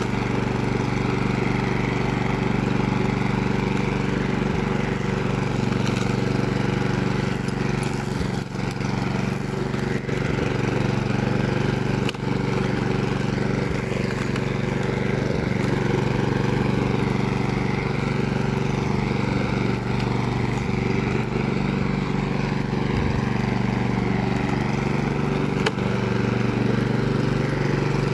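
Walk-behind petrol rotary lawn mower, its small engine running steadily at constant speed while cutting dry grass.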